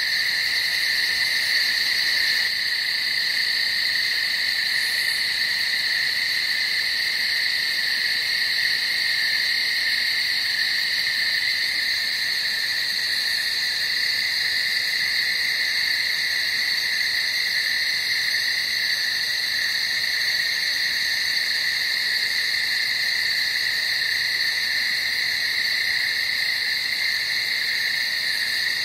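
Steady night chorus of calling animals: a dense, unbroken high trill in two pitch bands that holds unchanged throughout.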